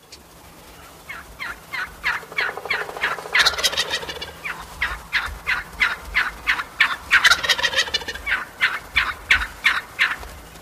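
Wild turkeys calling: a long run of short, sharp yelping notes, about two to three a second. A tom's rattling gobble cuts in twice, about three and a half and about seven seconds in, and these are the loudest moments.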